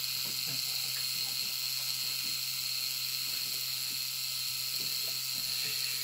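Steady background hiss with a faint low hum, and a few faint soft rustles.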